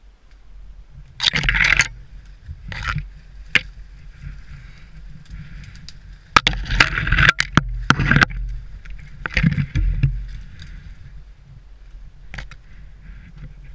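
Branches and twigs brushing, scraping and snapping against clothing and the camera as someone pushes on foot through dense undergrowth. The sound comes in irregular swishing bursts with sharp cracks, loudest between about 6 and 8 seconds in.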